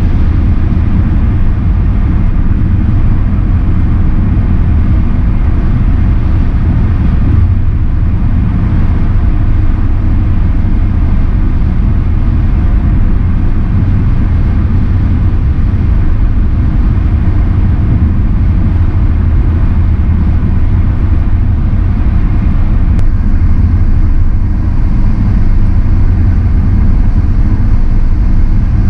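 Car travelling at highway speed: loud, steady rumble of wind and road noise on a car-mounted action camera.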